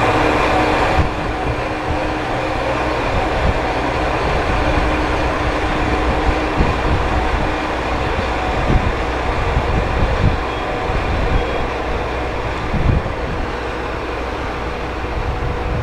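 Aizu Railway Ozatoro diesel train pulling out and running away along the track: a steady engine rumble and hum that eases about a second in, then irregular low thuds of its wheels passing over rail joints and points.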